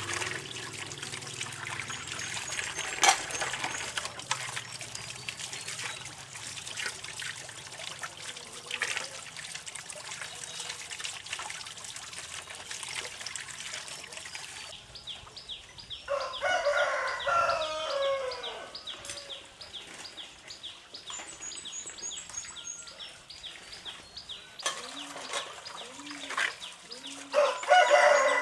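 A rooster crowing twice, about halfway through and again near the end, each a long call falling in pitch.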